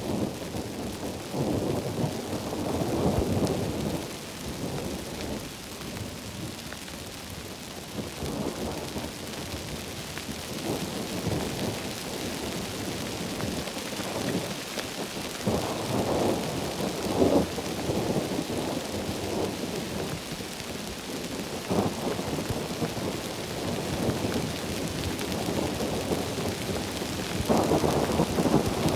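Heavy tropical rain falling with a steady hiss, while thunder rumbles in several rolling swells: near the start, in the middle and near the end.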